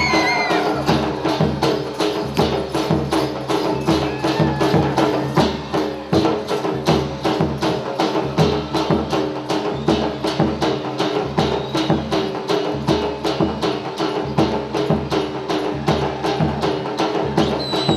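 Folk dance music with fast, even percussion strokes, about four to five a second, over a held melody line.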